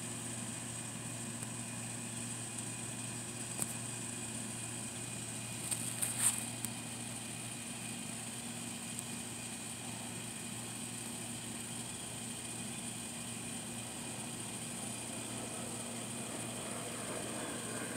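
Steady mechanical hum of a distant motor, with a constant high hiss above it. A few faint brief clicks or rustles come about four seconds in and again around six seconds in.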